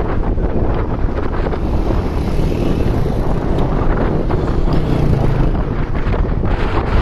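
Wind buffeting the microphone over the steady rush of a fast river. A small motorcycle's engine passes about four to five seconds in.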